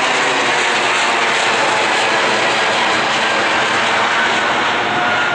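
Boeing 777's twin jet engines at climb power as it passes overhead just after takeoff: a loud, steady roar with faint whining tones that slide slightly lower in pitch.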